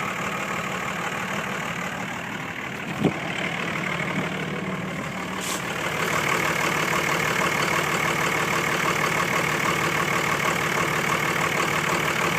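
2006 Cummins turbo-diesel inline-six idling with a rough, uneven idle when warm. A single sharp knock sounds about three seconds in, and the engine sound grows louder and brighter about six seconds in.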